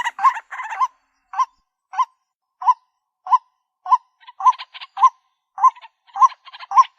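White-breasted waterhen calling: a croaking note with a short upward hook, repeated about every 0.6 s. A harsher rasping chatter runs with the calls during the first second and again from about four seconds in.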